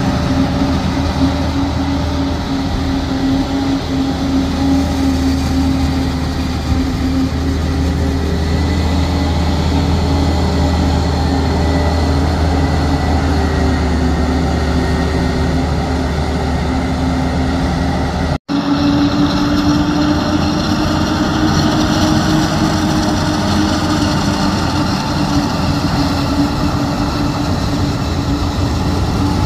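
A John Deere 9800i forage harvester and the tractor hauling alongside it run steadily as the harvester chops maize, giving a continuous heavy machine drone with a held steady hum. The sound drops out for an instant about two-thirds through, then carries on steady.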